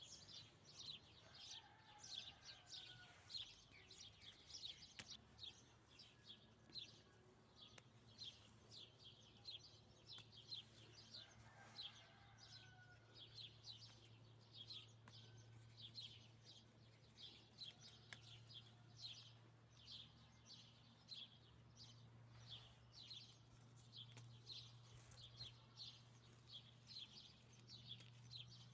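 Small birds chirping faintly, short high chirps repeating several times a second without a break. A faint steady low hum sits underneath from about a third of the way in.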